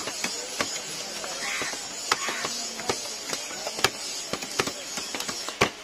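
Large knife chopping a big pangas catfish on a wooden chopping stump: a series of sharp, irregularly spaced knocks as the blade cuts through the fish and strikes the wood.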